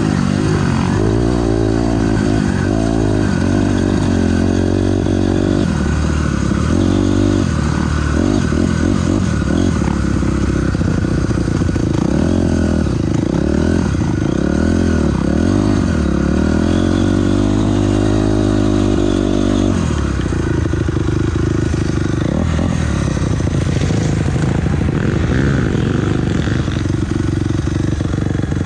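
2006 Honda CRF250R's single-cylinder four-stroke engine under riding load. It revs up and down over and over, its pitch rising and falling as the throttle is worked and gears change.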